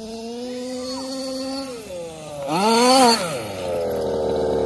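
Two-stroke petrol engine of a Losi 5ive-T 1/5-scale RC buggy (a G320) running at steady part throttle, easing off about two seconds in, then revving up and back down in a short burst before dropping to a steady idle as the buggy stops.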